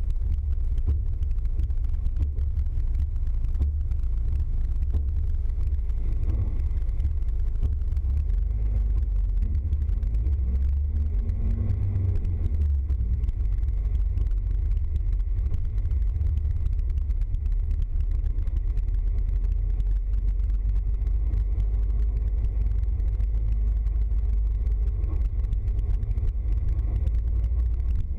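Vehicle engine and road noise heard from inside the cab while driving on a wet road: a steady low rumble that never drops away.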